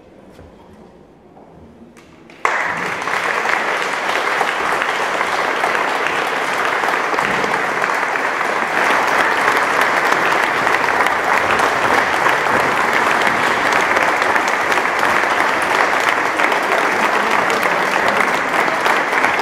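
Audience applause that starts suddenly about two and a half seconds in and then keeps going as steady, dense clapping.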